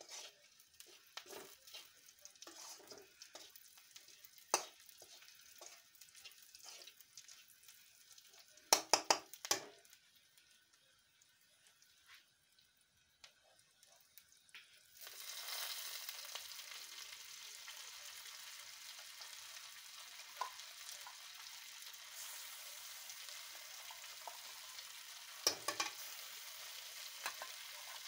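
Metal spatula scraping and clacking in a wok of onions and green chillies frying gently, with a cluster of sharp clacks about nine seconds in. About halfway through, a steady sizzle sets in as shrimp-head paste fries in the hot oil, with occasional spatula knocks.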